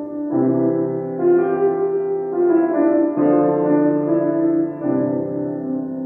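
Grand piano played in slow, sustained chords, a new chord struck about once a second, growing softer near the end.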